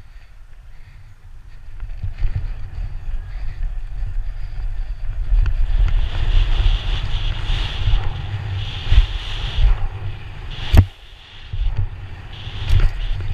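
Wind buffeting the microphone of a helmet camera on a BMX rider riding at speed: a low rumble that grows louder about two seconds in, with a higher hiss joining from about halfway. Late on there is a single sharp knock.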